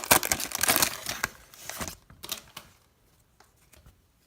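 Plastic foil wrapper of a trading card pack being torn open and crinkled, the crackling dense for the first second or so and dying away, followed by a few light clicks of card handling.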